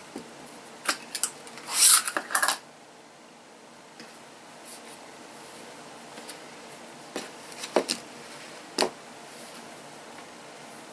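A knit fabric binding strip is pulled off its roll and slid across a plastic cutting mat, with a short rushing rub about two seconds in. A few soft clicks and scrapes follow later as the strip is laid out and handled.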